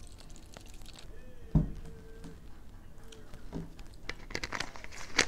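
Makgeolli pouring into a plastic bottle tails off. About a second and a half in, the full plastic bottle is set down on a wooden table with a single thud. Near the end, the emptied plastic makgeolli bottle crackles and clicks in her hands as it is handled and capped.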